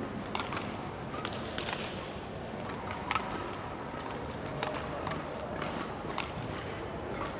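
Steady background noise of a large hall, with scattered, irregularly spaced sharp taps and short squeaks.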